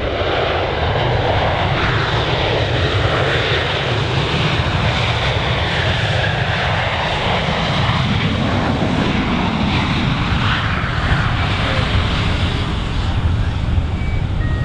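Boeing P-8 Poseidon's twin CFM56 turbofan jet engines running loud and steady as the aircraft passes close, the rush of sound slowly sweeping up and down in pitch.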